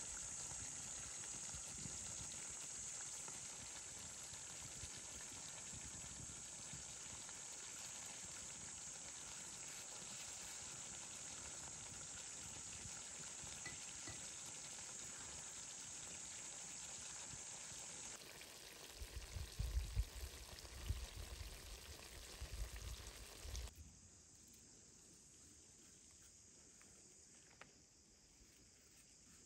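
Pan of stuffed tomatoes, peppers and eggplants sizzling and bubbling over a wood fire, a steady hiss. Low irregular thumps join it in the seconds before it stops, after which only a quiet outdoor background remains for the last few seconds.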